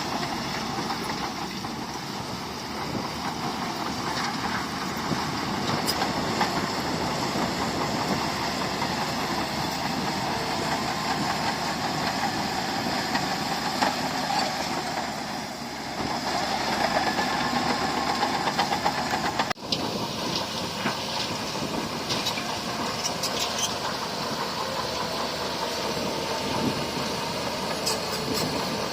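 Diesel engine of heavy earthmoving machinery running steadily, with a sudden brief break in the sound about two-thirds of the way through.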